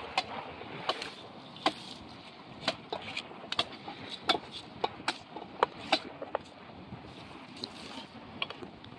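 Irregular sharp knocks and taps, about one or two a second, over a steady background hiss.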